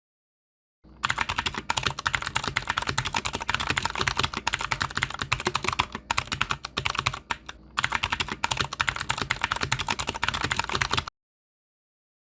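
Rapid computer-keyboard typing, a dense run of key clicks that starts about a second in, dips briefly twice, and cuts off abruptly near the end.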